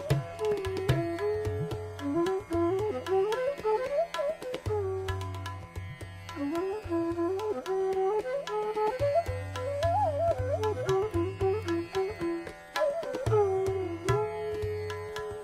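Bansuri flute playing a flowing, gliding melody in raag Bhopali, with tabla accompaniment that drops out and comes back in several times.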